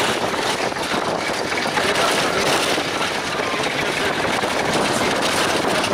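Steady rushing road and engine noise of a moving vehicle, even in level throughout.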